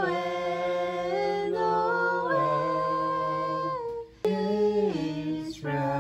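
Voices humming a slow tune in long held notes that step from pitch to pitch, breaking off briefly about four seconds in.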